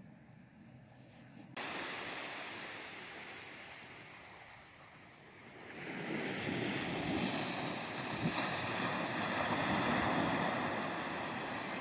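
Ocean waves washing onto a beach at low tide, with some wind. The surf sound starts abruptly about a second and a half in, eases off, and then swells louder about six seconds in.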